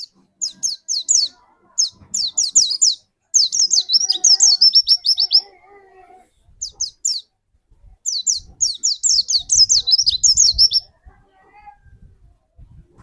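A white-eye (pleci) sings in several fast bursts of high, quick down-slurred notes, with short pauses between them. This is the rapid-fire 'tembakan' song that pleci keepers try to bring out.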